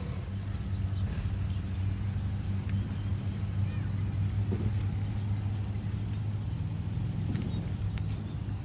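Steady high-pitched drone of insects, with a low steady hum of a longtail boat engine running at idle underneath.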